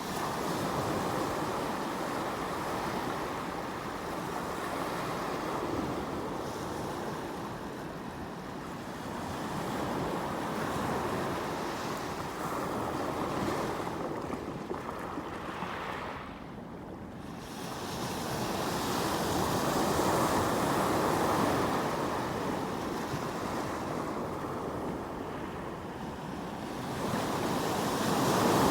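Sea waves washing in on the shore of Suruga Bay, swelling and fading every few seconds, with a brief lull a little past halfway.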